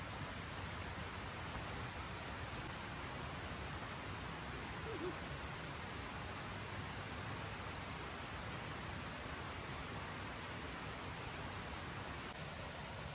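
Forest insects shrilling in one steady high-pitched tone that starts abruptly about three seconds in and cuts off about a second before the end, over a low background hiss.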